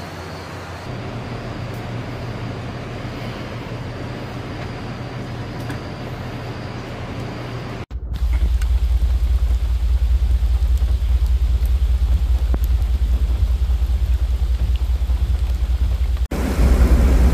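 A vehicle's engine running with rain falling. For the first half there is a fainter, steady wash with a low hum. After a sudden cut about halfway in, it becomes a much louder low engine rumble, heard close from the vehicle facing a flooded road in the rain.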